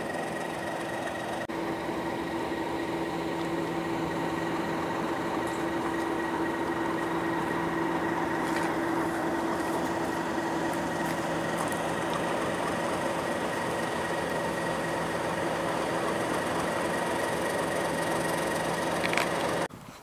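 Diesel locomotive engine idling: a steady hum with a held low tone and fainter higher tones. It cuts off suddenly shortly before the end.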